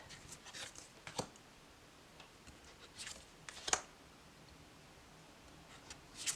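A few light taps and soft rustles of tarot cards being handled and set down, the loudest about three and a half seconds in, with quiet room tone between.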